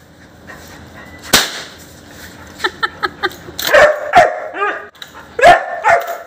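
Yellow Labrador barking in short sharp barks, a cluster about four seconds in and another near the end. A single sharp crack comes about a second in, before the barking.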